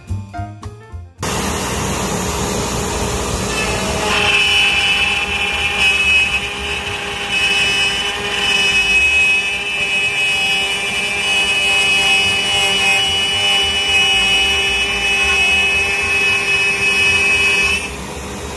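Shark HD5 CNC router's spindle running at 18,000 rpm while a 1/4-inch downcut endmill cuts a slot through a wooden board at a 40 ipm feed. The steady whirring starts abruptly about a second in. A high, steady whine joins it about four seconds in and drops away near the end.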